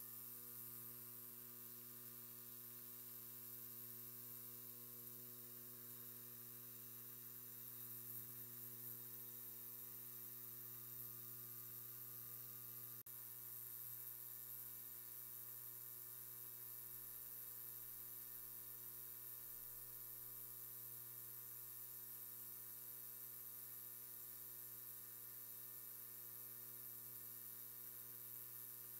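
DADI DA-968 ultrasonic cleaner running with a tank of cleaning solution: a faint, steady hum with a high hiss over it, with one brief dropout about halfway through.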